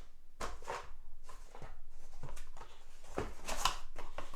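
A box and its packaging being opened and handled: irregular rustling and scraping with light knocks.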